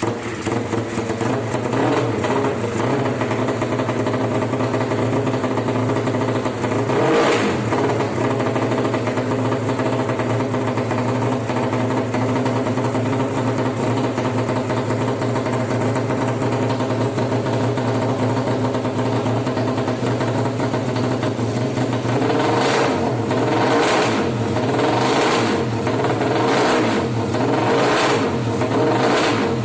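Suzuki Satria FU motorcycle engine, bored up to 200cc for racing, firing up and running at a steady fast idle. It is blipped once about seven seconds in, then revved in a series of about five quick throttle blips near the end.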